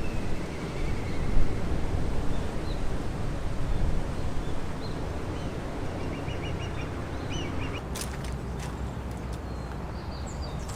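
Outdoor ambience with a steady low rumbling noise, and a small bird giving a quick run of short chirps about two-thirds of the way through.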